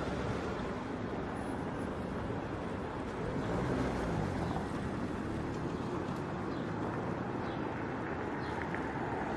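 Steady road traffic noise heard from a vehicle moving along a busy road, engines running and tyres on tarmac. A passing car's engine swells briefly about four seconds in.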